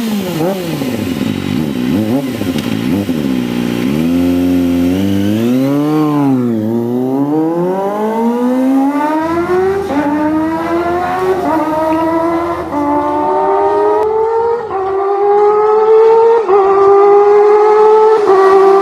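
Kawasaki ZX25R's inline-four engine, running through an M4 slip-on muffler that has a built-in silencer, revving hard. It starts with quick blips up and down. After one bigger rev, the pitch climbs steadily to a high whine, with small drops about every second along the way.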